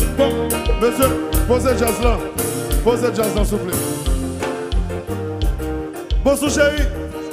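Live kompa band playing: electric guitar, keyboard, bass and drums with a steady beat, and a male singer's voice gliding over it.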